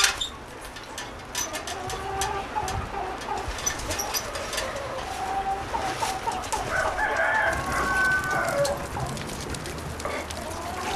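Domestic chickens clucking, with a rooster crowing about eight seconds in.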